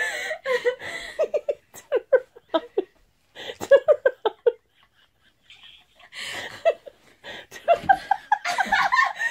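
People laughing hard in quick runs of short 'ha' pulses, with a pause of about a second near the middle before the laughter starts up again.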